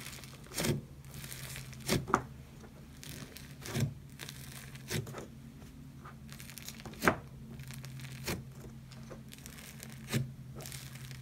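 Thick, fluffy slime squished and pulled apart by fingers in a plastic tub, giving sharp, irregular crackling pops about once a second, with tearing and crinkling in between. A steady low hum runs underneath.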